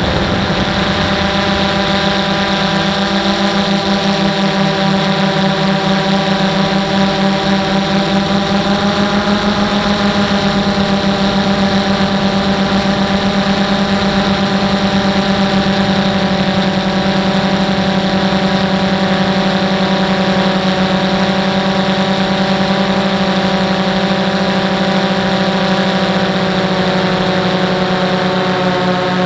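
DJI Phantom 1 quadcopter's four brushless motors and propellers in flight, picked up close by a camera mounted on the drone: a loud, steady hum with a slight throb, its pitch drifting a little as the motors adjust.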